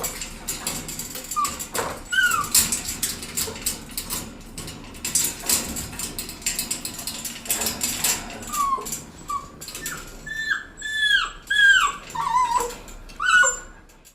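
A dog whimpering in short, high cries that fall in pitch, a few early on and a quick run of them in the second half. Under them is a steady clatter of clicks and knocks.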